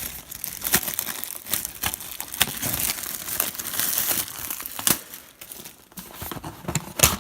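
Plastic wrapping crinkling and tearing by hand as a box of trading cards is unwrapped, in irregular crackles, with a sharp click near the end.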